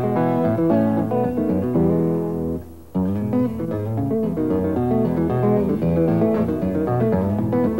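Solo steel-string acoustic guitar played fingerstyle: a quick run of picked melody notes over a moving bass line. The notes die away briefly a little before three seconds in, then the playing comes back in with a sharp attack.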